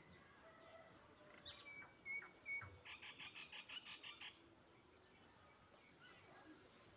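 A small animal calling faintly: a few short whistled notes, then a rapid trill of high chirps, about ten a second, lasting just over a second.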